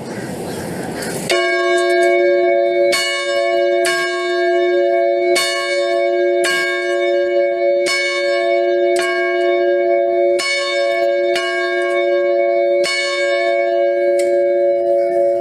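A single church bell tolling: about eleven strikes, each one to one and a half seconds apart, its hum ringing on steadily between them. A short rush of noise comes before the first strike.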